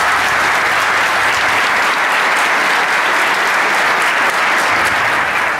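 Audience applauding, a steady, loud wash of clapping.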